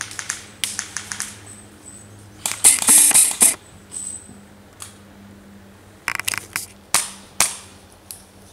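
Airsoft guns firing: several quick sharp shots in the first second or so, a loud rapid string of shots about three seconds in, and more shots after six seconds.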